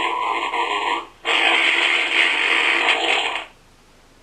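Recorded fart sound effect played from a soundboard: two long, noisy, spluttering blasts, the first about a second long and the second about two seconds, thin with no deep low end.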